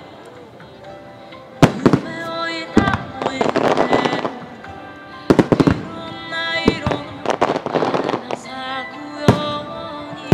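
Aerial fireworks shells bursting to a music soundtrack, in a music starmine. Sharp bangs come a couple of times early on, again around five to seven seconds and once near the end, and dense stretches of crackling stars follow the bursts at about four and eight seconds.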